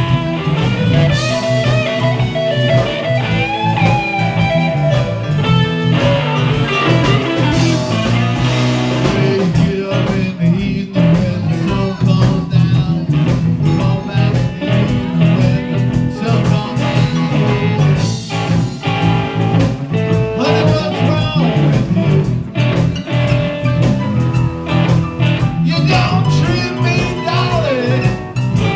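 Live blues band playing a blues in E, led by electric guitars.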